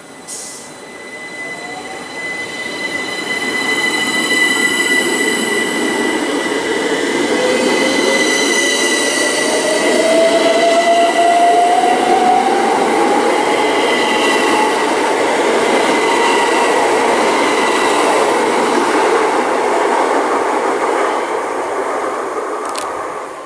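GWR Class 387 electric multiple unit pulling away from the platform: the traction motors whine, rising in pitch as it gathers speed, over a rumble of wheels on the rails with a steady high tone above. It grows louder over the first few seconds and fades near the end as the last coach clears.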